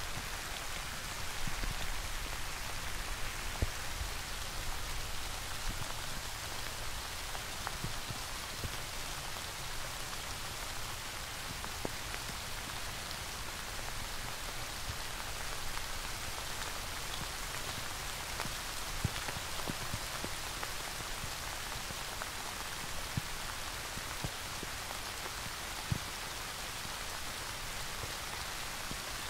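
Steady rain: an even hiss of many falling drops, with a few louder single drops standing out now and then.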